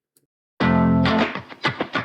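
Music with guitar that cuts in sharply about half a second in, after near silence.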